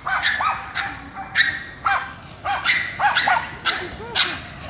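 A dog barking in a rapid, irregular string of about a dozen short, high-pitched barks, excited by a remote-control car it is chasing.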